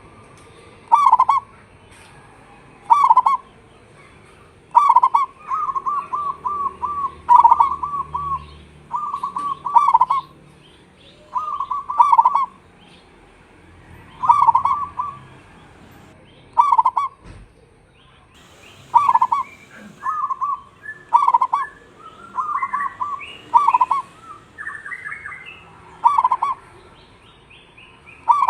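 Zebra dove (perkutut) cooing: repeated coo phrases near the same pitch, each a short run of notes, about every two seconds. A few higher, quicker chirps from a second bird come in a little over three-quarters of the way through.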